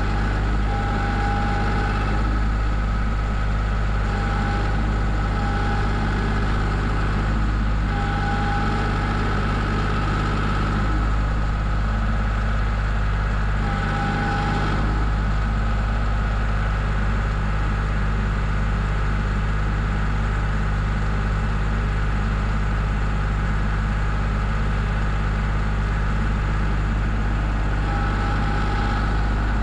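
Tractor's diesel engine running steadily at a low idle, with short higher whines coming and going a few times.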